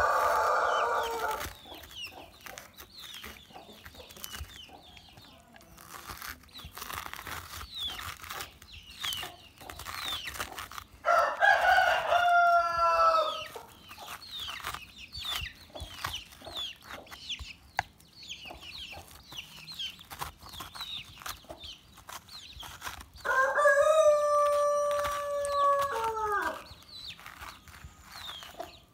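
A rooster crowing three times, about twelve seconds apart: the first crow ends about a second in, the others start about 11 and 23 seconds in, each lasting two to three seconds and dropping in pitch at the end. Between the crows come short high chirps and the clicking scrape of a metal spoon scooping seeds and pulp out of a pumpkin.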